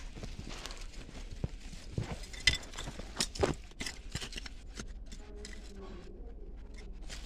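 Handling noise from a phone being pushed through plant leaves: irregular rustles and sharp clicks, the loudest click about two and a half seconds in, then quieter after about five seconds.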